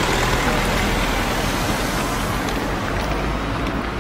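Steady outdoor background noise: an even rushing hiss with a low hum beneath it and no distinct events.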